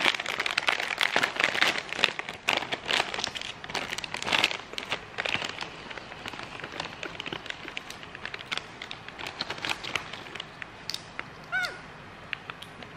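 Crinkly plastic snack bag rustling and crackling as it is held open and a baby monkey rummages in it. It is loud and dense for the first few seconds, then thins to scattered crackles. A brief high squeak sounds near the end.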